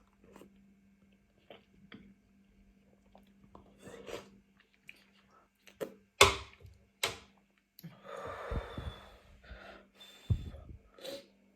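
Close-up eating noises from a person eating very spicy noodles: scattered mouth clicks and smacks, a few sharp louder clicks, and breathy puffs and a longer airy blowing or slurping stretch, the kind of breathing out against chilli heat.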